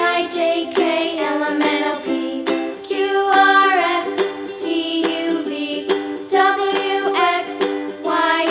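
Background music: a cheerful children's song with a sung melody over plucked ukulele-like accompaniment.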